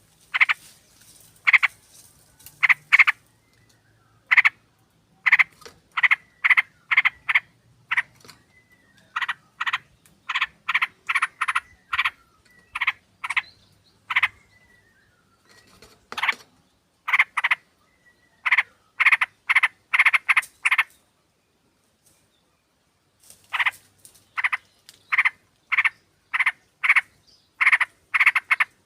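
A group of yellow-vented bulbuls calling: runs of short, sharp chattering notes, several a second, broken by brief pauses, with faint sliding whistles between them. About three quarters of the way through there is a silent gap of about two seconds.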